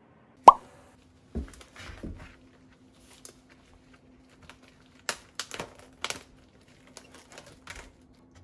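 Kitchen handling sounds. About half a second in comes a sharp clink with a short glassy ring, then a couple of dull knocks. In the second half, crackling of a plastic-wrapped meat tray is handled by gloved hands, over a faint steady hum.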